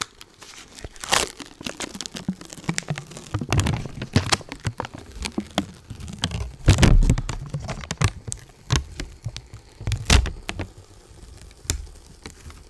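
Adhesive sheet being peeled back off a lint roller: irregular sticky crackling and tearing, with louder peels about every three seconds.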